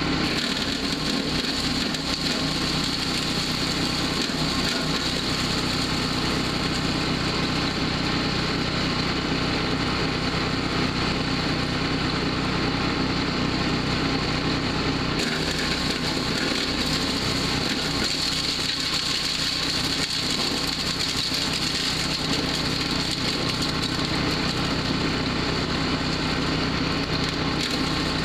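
Powerhorse wood chipper-shredder's gas engine running steadily, with a slight change in its hiss about halfway through.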